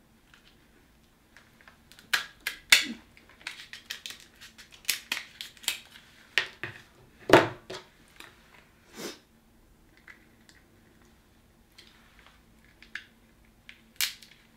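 Kitchen shears snipping and cracking through a king crab leg's hard shell: a run of sharp crunches and clicks, with one louder knock about halfway through. Near the end come a few quieter cracks as the shell is pried apart by hand.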